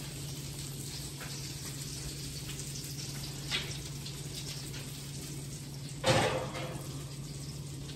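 Steady light sizzle of the pork tenderloin in the hot cast-iron grill pan, with a small click about three and a half seconds in. About six seconds in comes a metal clank with a short ring as the pan goes into the wall oven.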